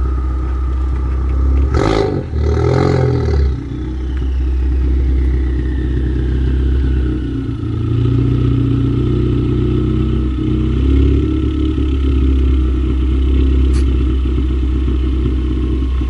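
Ford Focus ST's turbocharged four-cylinder heard through its exhaust, idling steadily, with a quick throttle blip and burst of noise about two seconds in. A faint whistle slowly falls in pitch over the idle.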